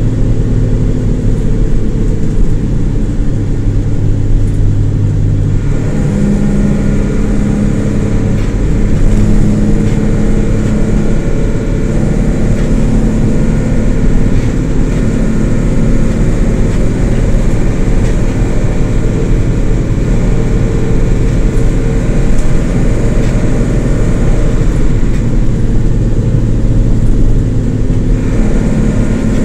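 The diesel engine of a 2006 Isuzu LT133P bus running under way, with a steady drone. Its pitch steps to a new level about six seconds in and again near the end, as the bus changes speed.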